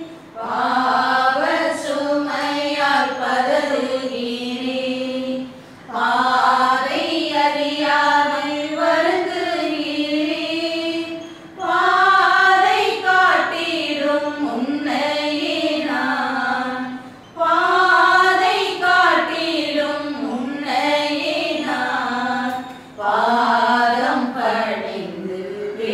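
Voices singing a hymn together in Tamil, in phrases of about five to six seconds with brief breaks for breath between them.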